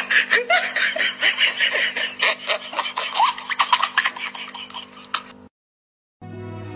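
A person laughing hard in rapid fits for about five seconds, then a short silence, and steady background music starting near the end.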